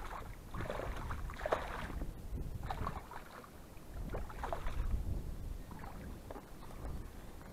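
Irregular rustling and water splashing at a reedy lake shore, from footsteps through wet grass and shallow water.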